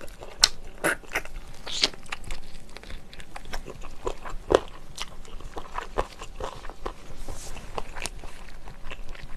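Close-up chewing and biting sounds of a person eating soy-braised chicken: irregular sharp mouth clicks and smacks throughout.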